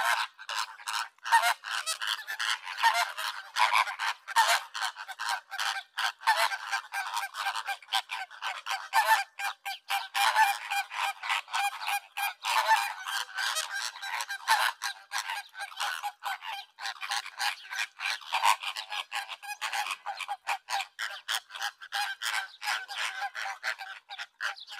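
A flock of flamingos calling, many goose-like honks overlapping in a continuous clamour.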